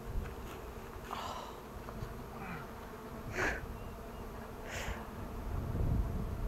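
Honeybees buzzing steadily around an open hive, with a few short scraping sounds about one, three and a half and five seconds in.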